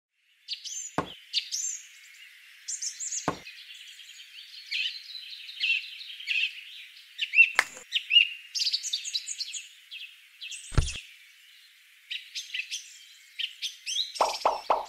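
Songbirds chirping and twittering, with a few light knocks, about four across the stretch, as small toy watermelons and a little woven basket are handled.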